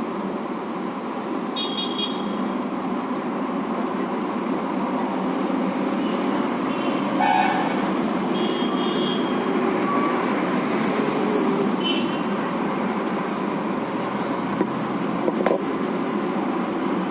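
Steady street-traffic noise with four short vehicle-horn toots spread through it.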